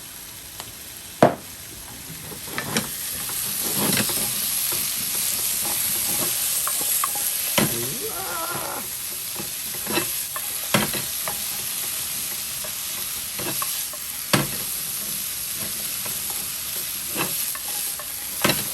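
Cut vegetables (bell pepper, zucchini, onion, eggplant and potato with garlic) sizzling in oil in a frying pan as they are stirred, with a utensil knocking sharply against the pan every few seconds. The sizzle grows louder about three seconds in.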